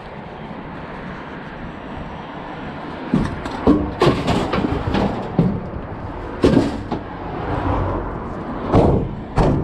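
Scrap metal being handled and thrown into a van: a run of clanks, knocks and thuds, starting about three seconds in, with the loudest bangs near the end.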